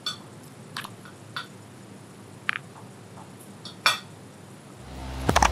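Forks and knives clinking against dinner plates: five short, separate clinks, one of them ringing briefly. Music swells in near the end.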